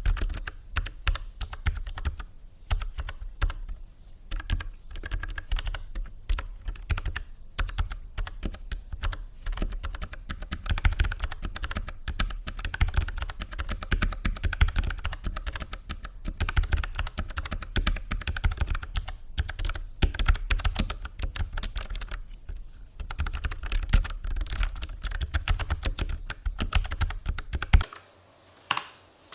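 Continuous fast typing on a Logitech MX Mechanical Mini keyboard with Kailh Low-Profile Blue clicky switches: a dense run of sharp key clicks. The typing stops near the end, leaving near silence apart from one last click.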